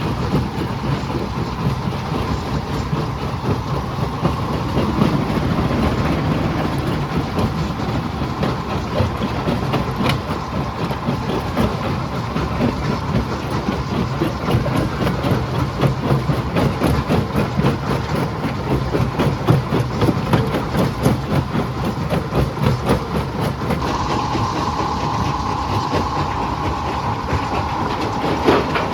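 Jaw crusher running and crushing stone: a continuous heavy mechanical rumble with dense clattering and knocking of rock. A steady higher whine joins near the end.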